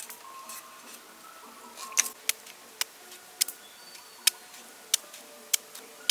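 A heavy cleaver shaving into a raw, crisp white radish held in the hand. From about two seconds in it makes a sharp snick with each stroke, about eight strokes at roughly one every half second to second.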